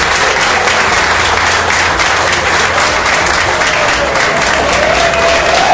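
A crowd of guests applauding with dense, steady clapping.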